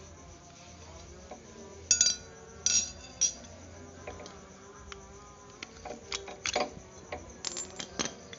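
Metal clinks from a Honda Scoopy's removed front brake caliper being handled: three loud, sharp, ringing clinks about two to three seconds in, then a run of lighter clicks near the end.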